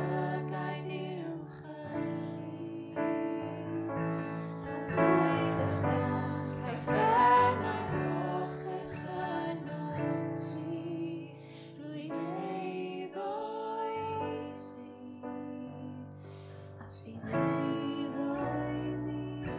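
A woman singing a slow worship song in Welsh, accompanied by keyboard and acoustic guitar.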